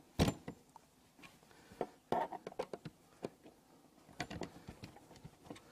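Irregular light clicks and knocks as hands handle and line up the panels of a Dobsonian telescope's rocker-box base.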